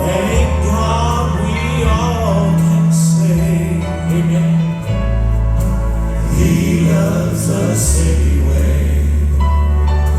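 Male gospel quartet singing in close harmony over accompaniment with held deep bass notes.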